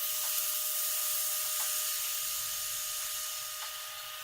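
Compressed air hissing out of an opened Schrader valve as the main hose line of a Tireboss central tire-inflation system is drained down. The hiss fades slowly as the line empties.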